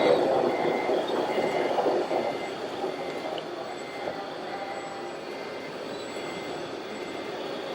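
Reversing beeper of a scale RC truck or construction machine, a high beep repeating about once a second over the model's running noise. The beeping and running noise fade after about two seconds.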